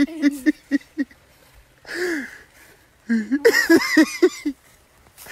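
People laughing hard in rapid, repeated ha-ha pulses that trail off about a second in; one drawn-out voice sound around the middle, then another run of laughter about three seconds in.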